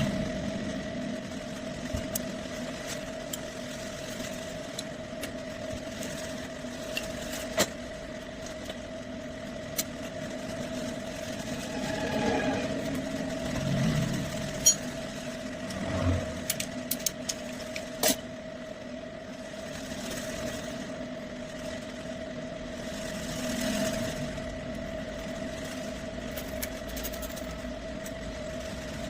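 Bajaj Platina ES motorcycle's single-cylinder four-stroke engine idling steadily, with a few sharp clicks and some brief swells in level. The bike is being checked for a piston noise problem.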